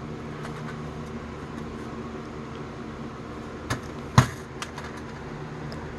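Steady low hum of background machinery, such as a fan or air conditioner, with a few sharp clicks from handling the toy ray gun; the loudest click comes about four seconds in.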